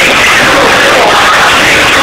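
Live electronic music played very loud through a club sound system, heard as a continuous, overloaded wash of sound with no clear beat standing out.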